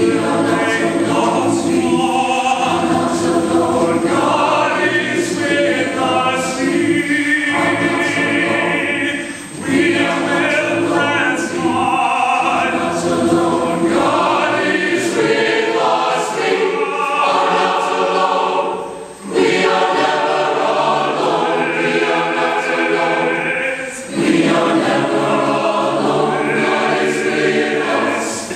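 Large mixed choir singing in sustained phrases, with a few brief pauses between phrases.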